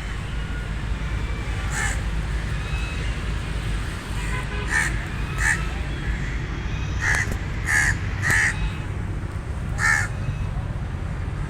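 A raven cawing in short, separate calls, about seven of them, with a quick run of three or four in the second half. A steady low rumble sits underneath.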